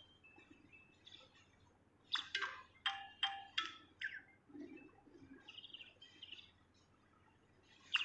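A songbird chirping: a quick run of sharp, loud chirps about two seconds in, with scattered softer tweets before and after.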